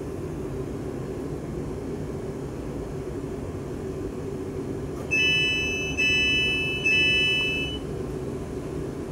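Class 350 Desiro EMU standing at a platform, with a steady low hum from its onboard equipment. A little after five seconds in, three door warning beeps sound back to back, each a bright tone that fades before the next.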